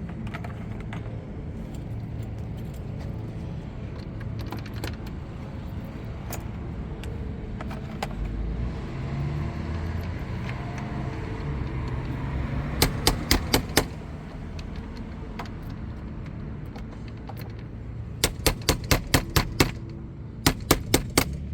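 Runs of quick, evenly spaced sharp clicks, about five a second, coming in three bursts: one about halfway in and two near the end, over a steady low rumble.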